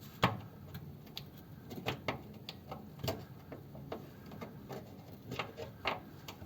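Light metallic clicks and ticks from hand tools on the gearbox rear-mount bolts of a Ford 100E, in an irregular run of about one to three a second, as the bolts are checked for tightness.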